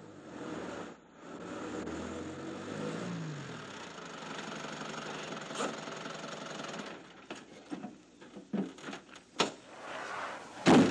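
A van's engine running, its pitch falling about two to three seconds in as it slows, then a series of clicks and knocks, the loudest near the end.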